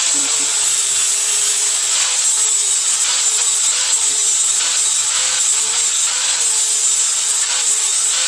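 Power tool working steel under steady load: a loud, continuous hissing grind with a faint wavering hum beneath it.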